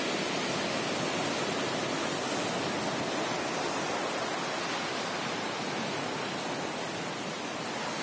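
Ocean surf breaking along the shore, heard as a steady, even rushing with no rise and fall of single waves.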